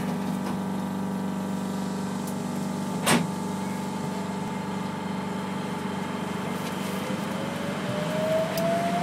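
New Shuttle rubber-tyred people-mover car running on its guideway, heard from inside the car: a steady electrical hum, a single sharp click about three seconds in, and a rising motor whine near the end as the car gathers speed.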